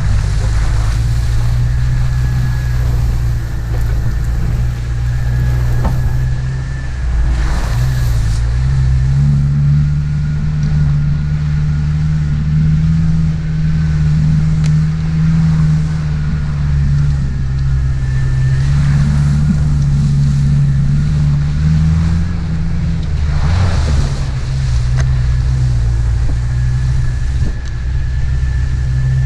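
1997 Jeep TJ engine running as the Jeep is driven, a steady low hum that climbs in pitch about a third of the way in and settles back down near the end.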